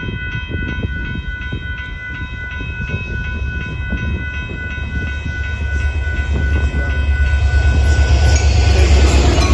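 Railroad crossing bell ringing in a steady, even pulse, joined by the low rumble of an approaching Union Pacific diesel locomotive that grows louder over the last few seconds.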